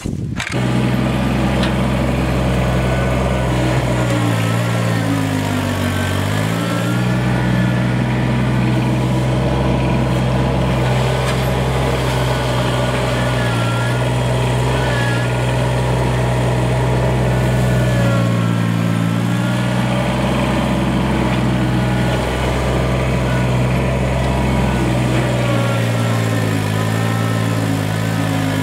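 Kubota BX2370 compact tractor's three-cylinder diesel engine running steadily at working speed. Its note dips and recovers several times as the front-loader bucket pushes into the dirt and takes load.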